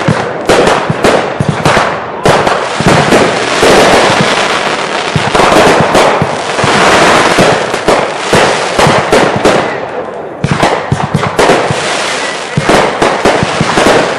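Consumer fireworks finale: a dense, loud barrage of overlapping bangs and crackling from many aerial shells going off in quick succession, easing briefly about ten seconds in before picking up again.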